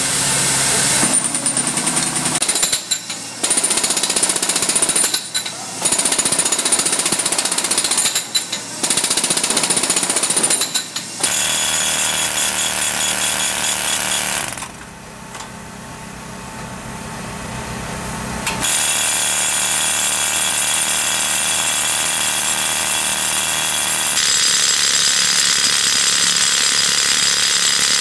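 Boom-mounted pneumatic chipping hammers breaking out concrete, heard in several separate takes: stop-and-start bursts with short breaks for the first ten seconds or so, then continuous, steady hammering.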